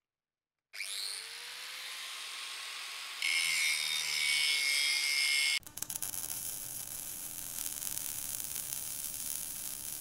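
Arc-welding sound effect played back by an Arduino welding simulator with a DFPlayer sound module. A hiss starts about a second in and grows louder with a steady high whine a few seconds later, then about halfway through it switches to a harsh, crackling arc buzz.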